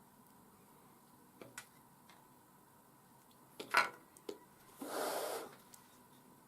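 Small handling sounds from cardstock model parts being fitted and glued: a few light clicks and taps, the loudest nearly four seconds in, then a short rustling scrape about a second later.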